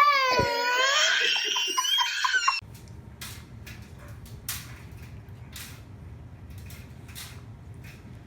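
A small child's high-pitched squealing laughter for about two and a half seconds, cut off abruptly. Quieter room noise with scattered soft clicks follows.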